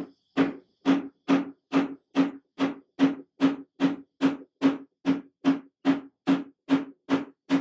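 Rubber mallet tapping an old wooden chair's side rail near the leg in steady, evenly spaced light blows, about two and a half a second, each a dull wooden knock. The taps are working a loose rail-to-leg joint apart for regluing.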